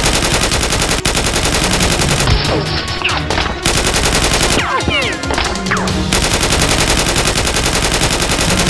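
Machine-gun fire sound effect standing in for toy blasters firing: a fast, continuous rattle of shots with a few brief breaks.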